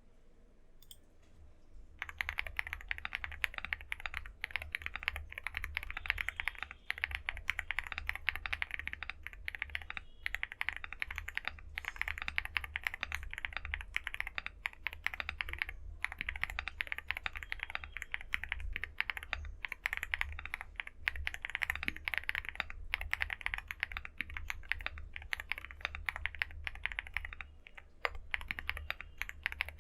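Fast, continuous typing on a Leobog Hi75 mechanical keyboard fitted with TTC Superman switches and a double layer of tempest tape. It starts about two seconds in and has a few brief pauses.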